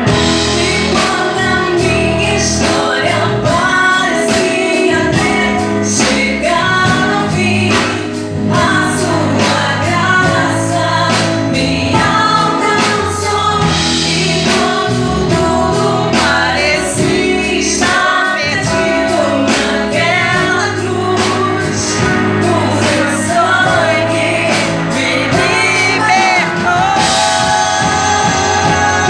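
A gospel song sung in Portuguese with instrumental accompaniment.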